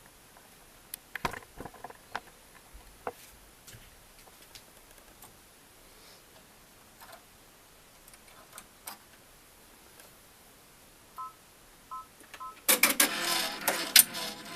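Brother PR1000e embroidery machine: a few faint clicks, three short beeps from its control panel, then the machine starts stitching near the end with a loud, rapid clatter. This is the running noise the owner posts as a squeaking main shaft.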